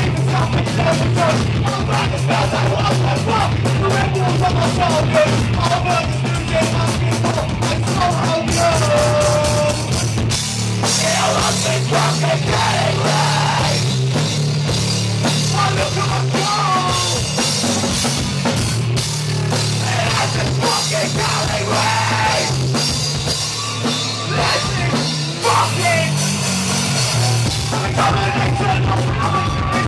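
Live rock band playing loudly: pounding drums, heavy bass and distorted guitar, with a vocalist singing into the microphone.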